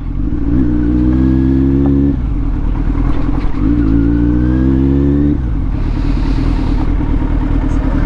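Kawasaki Z900's inline-four engine through an aftermarket Arrow exhaust with the dB killer removed, accelerating hard. The engine note climbs, drops at an upshift about two seconds in, climbs again, and shifts again just past five seconds before running on rougher.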